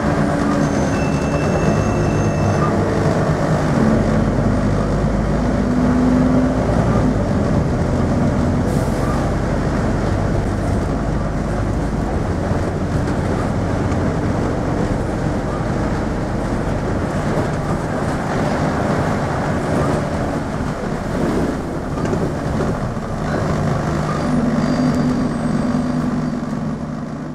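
Scania N230UD double-decker bus's five-cylinder diesel engine pulling hard at speed, heard from inside the passenger saloon over steady road noise.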